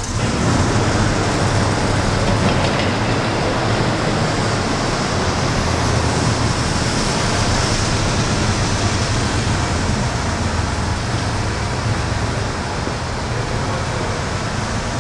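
Ford Maultier half-track's V8 engine running with a steady low rumble, its tracks and running gear rattling along.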